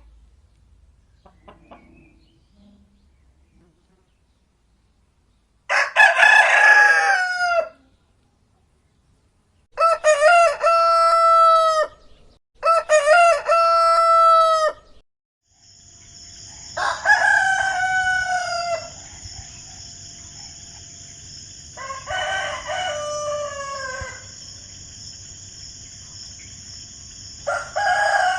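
Roosters crowing: six separate cock-a-doodle-doos of about two seconds each, after a few seconds of near quiet. The last three come over a steady high hiss and a low background rumble.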